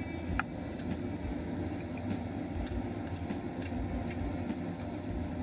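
Steady low background hum, with a faint short tick about half a second in.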